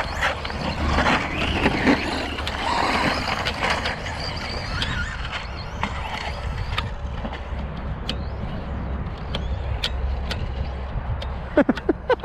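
Brushless electric RC short-course trucks (Traxxas Slash 2WD VXL) running laps on a dirt track, with motor and tyre noise and scattered sharp clicks, over a steady low rumble.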